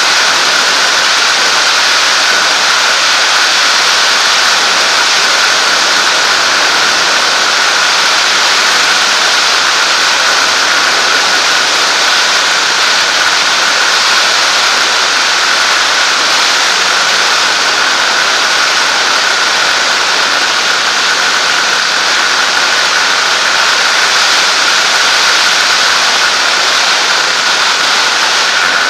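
Zenair 701 light aircraft in cruise flight, heard from inside the cabin: its engine and propeller make a steady, loud drone mixed with the rush of airflow, with a constant high whine running through it.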